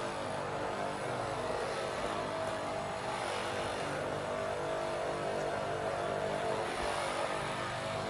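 A steady mechanical drone with faint steady tones over a hiss.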